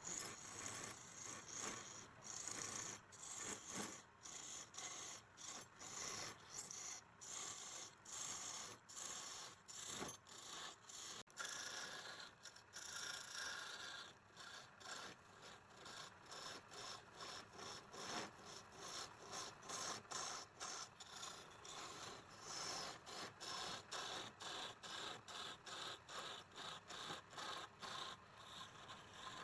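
Rhythmic back-and-forth hand scraping strokes, about two a second, each a short rasping rub, like filing or scrubbing rust off metal.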